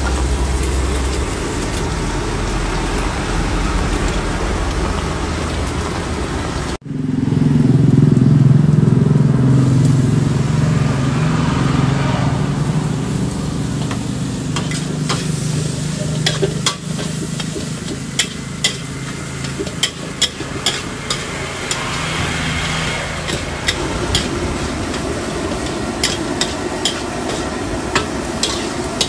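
Nasi goreng, egg and then rice, sizzling in a metal wok while a metal spatula stirs and scrapes it. Sharp clacks of the spatula against the wok come thick and fast in the second half. A steady low drone starts abruptly about seven seconds in and fades around seventeen seconds.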